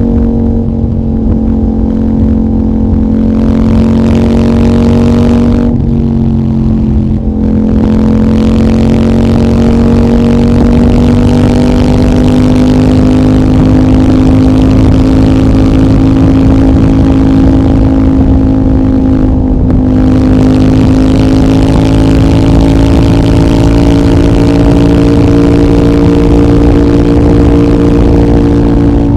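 CFMOTO 800NK's parallel-twin engine, running through a decat pipe and the stock muffler, is loud and under steady throttle with its pitch climbing slowly. The exhaust note breaks off briefly about six seconds in and again about nineteen seconds in, each time as a short cut in the throttle or a gear change.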